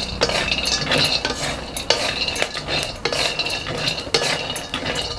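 Raw peanuts being dry-roasted in a black iron pan, turned with a wooden spatula: an irregular run of scraping and small rattling clicks as the nuts tumble over the hot metal.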